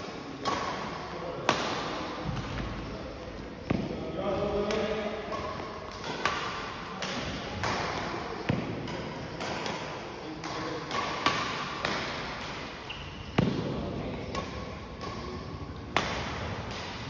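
Badminton rackets striking shuttlecocks during rallies: sharp hits every second or two, echoing in a large hall.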